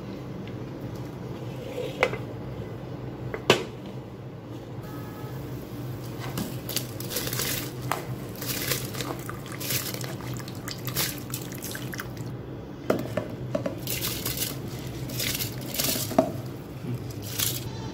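Wooden spoon stirring chicken in broth in an aluminium pressure cooker, with two sharp knocks against the pot in the first few seconds. Then raw rice is poured in from a steel bowl, splashing into the liquid in many short bursts.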